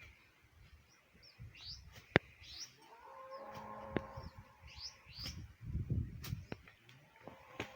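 Small birds chirping in short rising calls, over dull thuds of a hand hoe striking into dry soil every few seconds, with one sharp knock about two seconds in.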